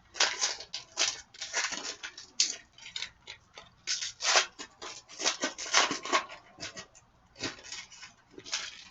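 2015-16 Artifacts hockey card pack being torn open, its wrapper crinkling and rustling in a run of irregular short bursts.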